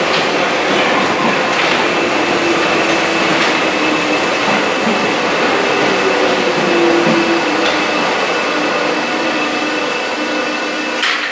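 Paris Métro MF 77 train on steel wheels running into the platform and slowing. It makes a steady rumble of wheels on rail with a low motor hum that drifts slowly down in pitch, and the noise eases a little near the end.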